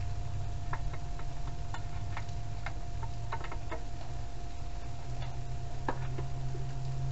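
Irregular light clicks and ticks, sometimes single and sometimes in quick runs of two to four, over a steady low hum.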